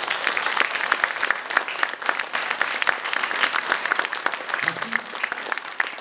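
Audience applauding, a dense steady clapping at the end of an acoustic guitar song.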